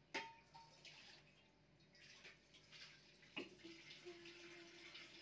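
Quiet kitchen sounds: two sharp knocks of cookware, one just after the start and one about three and a half seconds in, over a faint hiss. A steady low hum comes in after the second knock.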